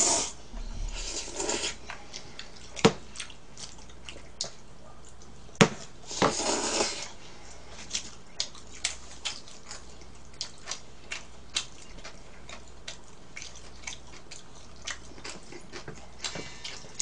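Eating at a table: frequent light clicks of chopsticks against bowls, with a few louder noisy bursts about a second long near the start and around six seconds in.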